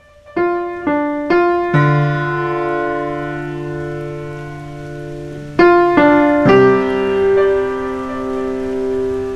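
Outro music: slow piano notes and held chords, with a few single notes struck at the start and new chords about five and a half and six and a half seconds in.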